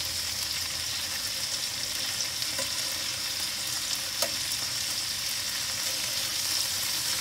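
Chicken pieces in a honey and spice marinade sizzling steadily as they fry in a pan over medium-high gas. A light utensil click comes about four seconds in.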